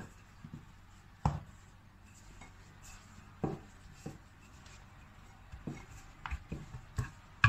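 Rolling pin rolling out pizza dough on a countertop, with scattered knocks and taps of the pin on the counter and a few close together near the end.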